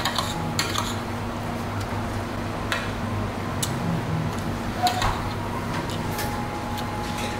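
Cutlery clinking and scraping on a plate of curry rice while eating: a handful of scattered light clicks over a steady low hum.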